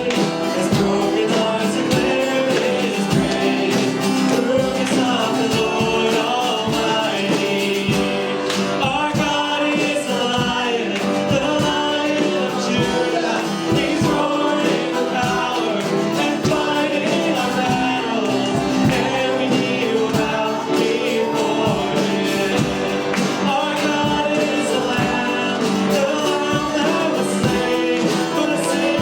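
Live worship band playing a song with voices singing the melody over a steady drum beat.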